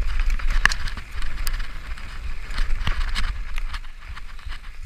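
Mountain bike descending a dirt singletrack at speed: tyres rolling over dirt and leaf litter and the bike rattling, with repeated sharp clicks and knocks, over a steady low wind rumble on the microphone.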